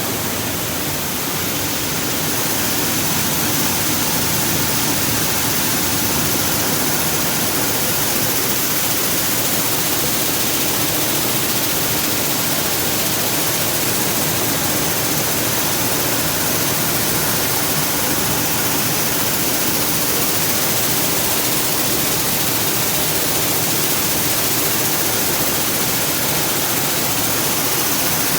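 Rice combine harvester running steadily, a loud even mechanical noise with a faint steady hum through it.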